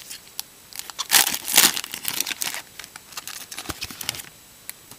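Foil wrapper of a Topps baseball card pack being torn open and crinkled in the hands, loudest about a second in, then lighter crinkles that stop about four seconds in.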